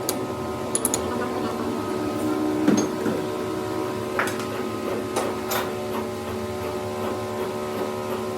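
A machine running with a steady hum, with scattered clicks and knocks over it, the most prominent about three seconds in.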